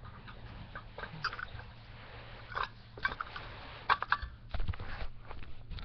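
Scattered clicks, taps and rustles of small objects being handled, the loudest cluster about four seconds in, over a steady low hum.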